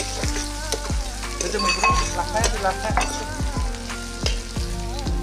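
Pork frying and sizzling in a pan as it is stirred, under background music with a steady thumping beat about twice a second.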